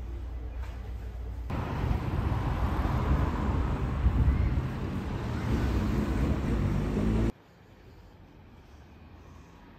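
Outdoor background noise: a deep, uneven rumbling rush that starts about a second and a half in and cuts off abruptly about seven seconds in, leaving only a faint hiss. Before it, a quiet room tone with a low hum.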